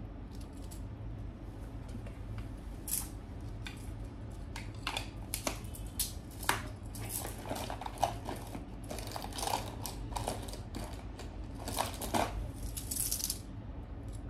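Scattered light clicks, clinks and taps of small makeup items being handled, over a steady low hum.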